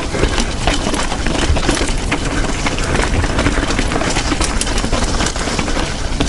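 Mountain bike ridden fast downhill on a dirt trail: a constant rattling and clattering of the bike over the rough ground, with many sharp knocks from bumps over a steady rushing noise.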